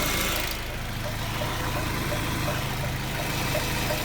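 Mazda 6 engine idling with a light, regular knock about three times a second from the accessory belt drive. The knock appeared after the tensioner bearing and idler pulley were replaced, and it stops with the belt removed, so the owner takes it for a belt-drive fault rather than an engine one.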